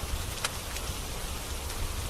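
Steady rain hiss with a low rumble underneath, and a few sharp crackling pops from a wood fire; the loudest pop comes about half a second in.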